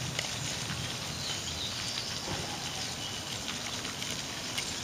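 Steady outdoor background noise: an even hiss with a low hum underneath and a few faint scattered ticks.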